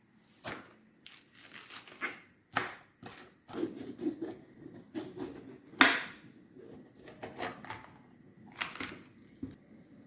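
Irregular crinkling and rustling handling noises with several short, sharper knocks, the loudest about six seconds in.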